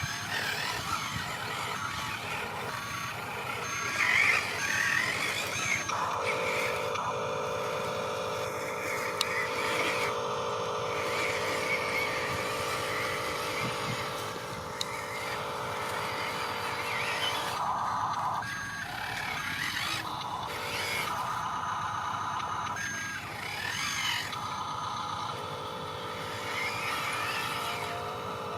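Electric motors and gearing of radio-controlled model construction machines whining steadily in long stretches that start and stop as the machines work, with short repeated beeps early on.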